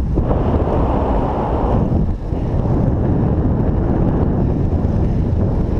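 Wind buffeting the microphone from riding along on a bike: a loud, steady rumbling rush with brief dips.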